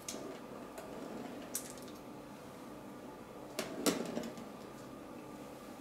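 Pizza wheel cutter rolling through thin almond-and-mozzarella dough on baking paper, a soft scraping with a light click; the loudest moment is a short cluster of knocks and scrapes about four seconds in.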